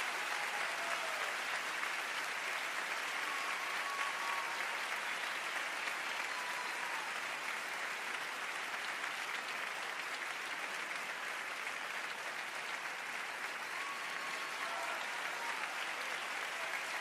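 Theatre audience applauding steadily through a curtain call, an even, unbroken clapping with a few faint shouts or whistles over it.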